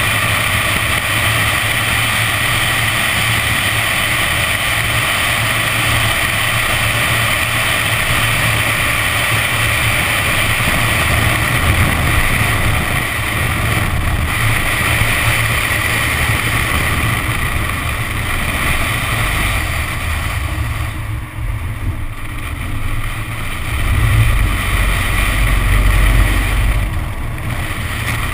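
Nissan 370Z's V6 engine running under way while its tyres throw water spray off a flooded track, heard from a camera mounted on the outside of the car with wind buffeting the microphone. A deeper rumble swells up near the end.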